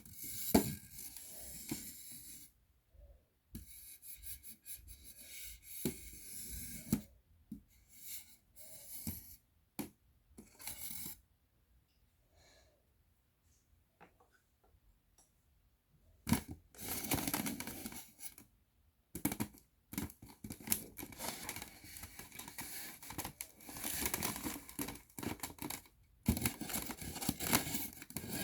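A round plastic cake box and its plastic lid handled close to the microphone, scratched, rubbed and tapped, with scattered clicks. It goes almost quiet for a few seconds in the middle, then the scratching and rubbing grow denser.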